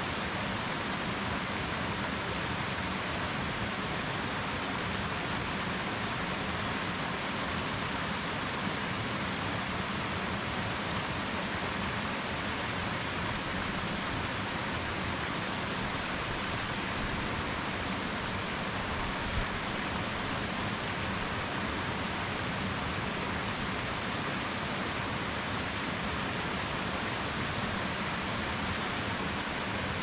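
Waterfall: water falling and splashing in a steady, even rush.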